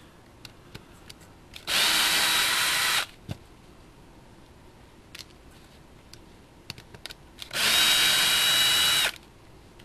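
Craftsman cordless drill/driver run twice in steady bursts of about a second and a half each, backing screws out of a model buggy's gearbox housing during teardown. Small handling clicks come between the bursts.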